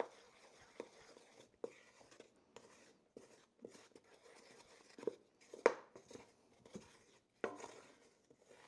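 Wooden spoon stirring a stiff, powdery powdered-sugar batter in a stainless steel pot: scraping, with irregular light knocks against the pot, the sharpest about two-thirds of the way through.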